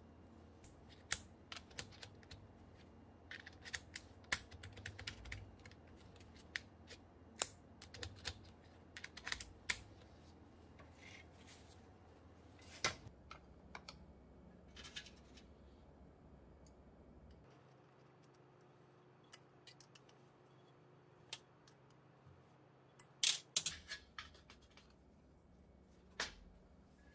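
Quiet, scattered clicks and taps of hands handling a Hitachi WH 14DBAL cordless drill's plastic housing and small metal parts. They come thickest in the first ten seconds, with a quick cluster of sharper clicks about 23 seconds in.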